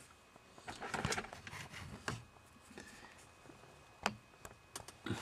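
Faint handling noise, with light rustling and a few short sharp clicks, the clearest about four seconds in.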